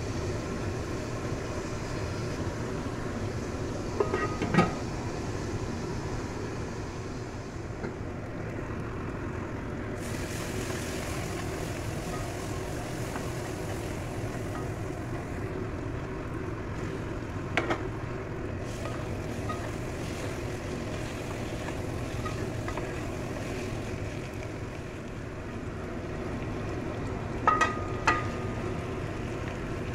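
Onion and spice masala frying in a nonstick pan with a steady hiss and rumble, a spatula knocking against the pan a few times. Near the end two clinks as boiled eggs are slid in from a plate.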